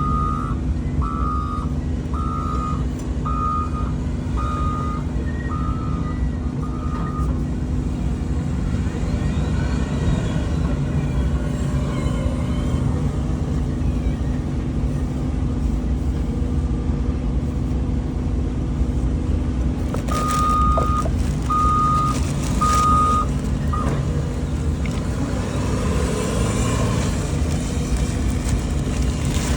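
Heavy equipment running steadily with a low engine rumble, and a backup alarm beeping about once a second for the first seven seconds, then three more beeps around twenty seconds in.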